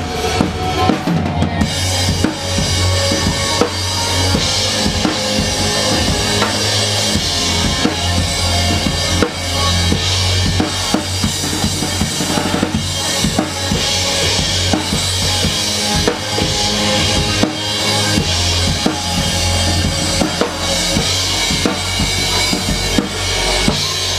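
Acoustic drum kit played hard with sticks, with kick drum, snare and cymbal crashes in a fast, driving groove, along with a recorded pop song and its steady bass.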